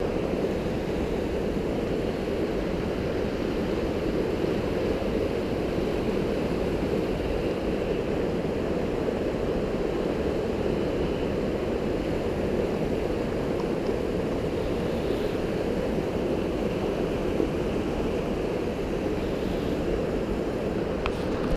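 Small mountain creek rushing over rocks through whitewater rapids: a steady, unchanging rush of water.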